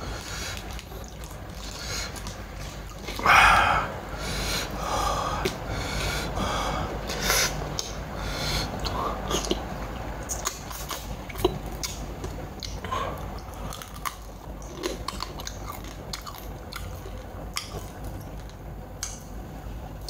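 A person eating Lao-style crab koi (seasoned raw sea crab): chewing and biting, with many small sharp clicks throughout. A short loud sound comes a little over three seconds in.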